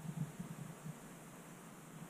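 Faint steady hiss, with a few soft low knocks in the first second.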